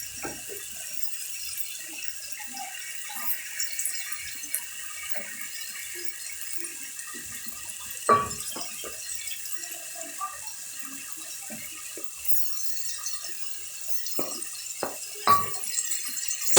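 Chopped tripe frying in a pan with onions and spices, a steady sizzle with fine crackling, broken by a few sharp knocks of a utensil against the pan.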